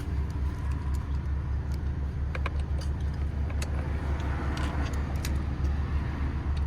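Car's V6 engine idling with a steady low hum, while a few light metallic clicks of small parts or tools sound around the middle.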